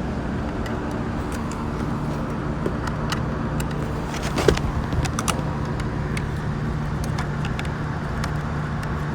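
A steady low mechanical hum, with scattered light clicks and taps of parts being handled and fitted on an outdoor electrical outlet box.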